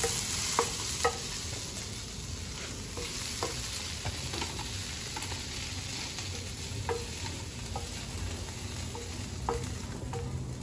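Beans stir-frying in hot oil in a pan, sizzling steadily, with scattered light clicks of a utensil against the pan as they are stirred.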